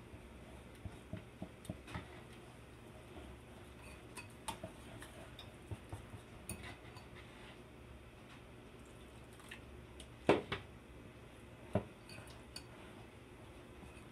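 Wire whisk clinking against a ceramic bowl while mixing batter, in scattered light clicks, with two louder knocks near the end.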